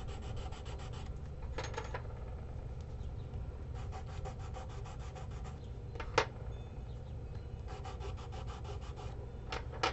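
Chalk pastel sticks scratching on paper in runs of quick short strokes, with three sharp taps as sticks are put down on the table, the loudest about six seconds in. A low steady hum runs underneath.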